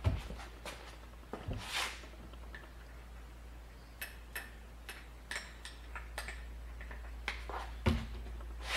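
Irregular light clicks and taps of small metal parts as a battery master switch is handled and put back together, with a few sharper knocks near the start and near the end.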